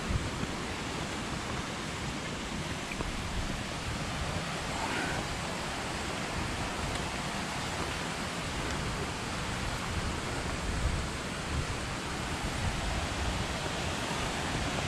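Small mountain-stream waterfall pouring through a rock gorge into a pool: a steady rush of falling water, with an uneven low rumble of wind on the microphone.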